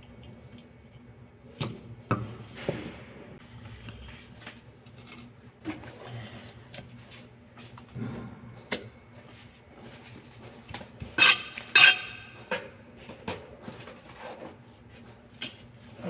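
Steel mason's trowels scraping and tapping on mortar and hollow clay bricks as they are laid: a scattered run of clicks, knocks and clinks, with two loud ringing strikes about two-thirds of the way through.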